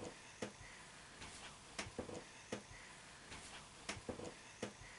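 Faint, irregular light clicks and taps of a spoon and sugar sprinkle decorations on a dessert plate, about a dozen in all.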